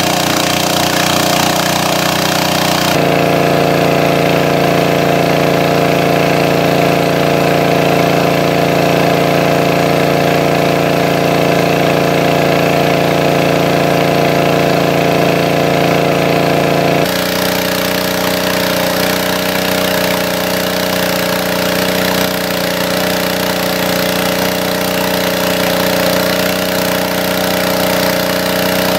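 Small engine-driven water pump running steadily, pumping creek water out through its hose. Its tone changes abruptly about three seconds in and again after about seventeen seconds.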